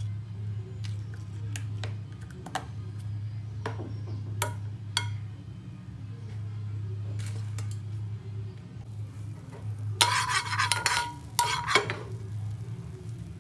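A metal spoon clinks and taps now and then against a nonstick frying pan. About ten seconds in it scrapes and clatters across the pan, spreading margarine, which is the loudest part. A steady low hum runs underneath.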